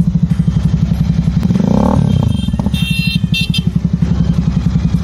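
Royal Enfield Super Meteor 650's parallel-twin engine idling through a stainless cruiser-style aftermarket silencer held onto the header pipe, with a steady even pulse. About two seconds in it is blipped once, rising and falling back to idle.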